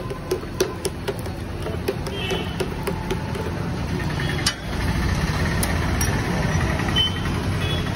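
A steady low engine rumble of nearby traffic, growing louder about halfway through, with light clicks and taps in the first few seconds.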